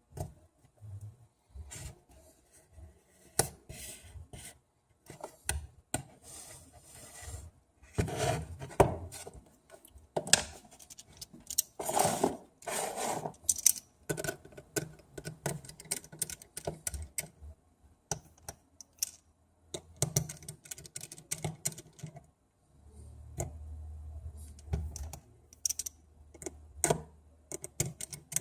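Small tools and phone parts clicking, tapping and scraping on a work surface as a smartphone is taken apart by hand, with a low hum for about two seconds near the end.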